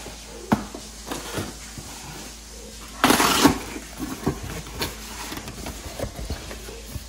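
Cardboard shipping box being opened by hand: a few light knocks and scrapes, then a loud, short tearing rip of packing tape and cardboard about three seconds in, followed by the flaps being handled with small knocks.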